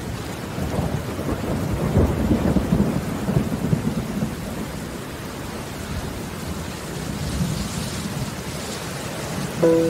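Steady rainfall with a rolling thunder rumble that swells in the first few seconds and then eases back under the rain.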